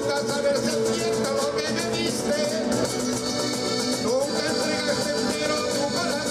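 Background music in a Latin American style, with a wavering melody line over a full, steady accompaniment.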